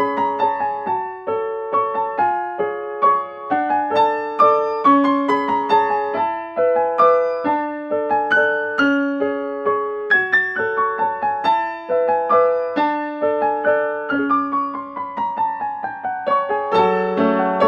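Background piano music: a gentle melodic electric-piano line with repeating notes.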